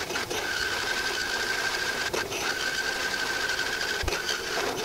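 Drill press turning a large bi-metal hole saw through a metal plate: a steady grinding whine of the cut, broken three times by a short click. The cut is near breakthrough, going faster now that part of the saw's cutting edge is in open air.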